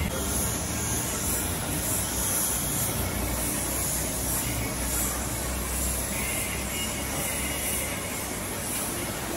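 Gravity-feed paint spray gun hissing with compressed air as it sprays paint onto a scooter body shell. The hiss swells and eases in passes over a low background rumble.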